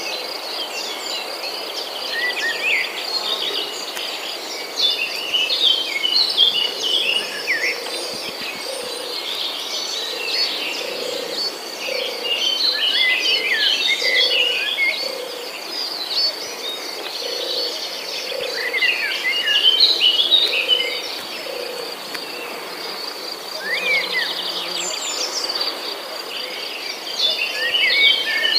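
Nature ambience of crickets and birds: a steady high insect trill with bursts of bird chirps coming and going, and a low call repeated about once a second through the middle.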